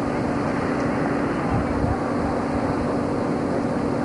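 A steady low mechanical hum holding one pitch without change, with wind rumbling on the microphone.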